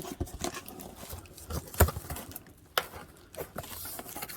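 Irregular clicks and knocks of hard plastic tool parts being handled, with two sharper knocks about two and three seconds in.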